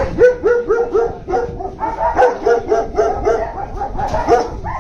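German Shepherds barking in quick, repeated barks, several a second, with barks from more than one dog overlapping in the middle.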